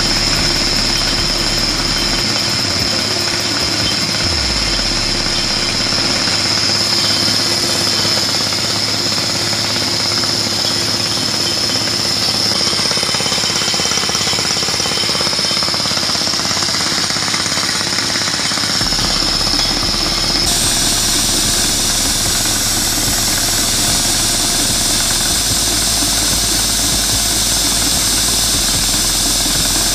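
Fully pneumatic ECODRIL 432 drill rig drilling rock with a down-the-hole hammer: steady, loud hammering and compressed-air blast as cuttings are blown out of the hole. A high whistle runs through it until about two-thirds of the way, then stops.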